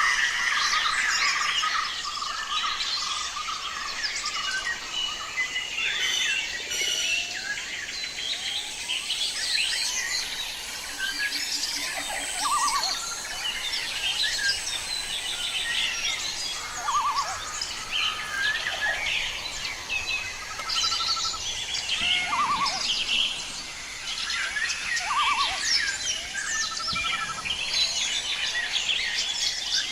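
Many wild birds calling at once, a dense chorus of overlapping chirps and whistles, with short rapid trills now and then.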